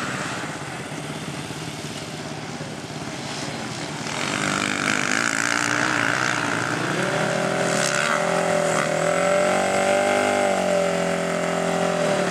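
Racing quad (ATV) engines revving, their pitch rising and falling with the throttle. The sound grows louder about four seconds in, and from about seven seconds one engine dominates with a wavering, swooping pitch.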